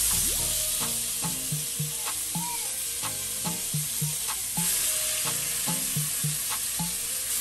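Seasoned pork rib pieces searing in hot grapeseed oil in a cast iron Dutch oven, a steady loud sizzle.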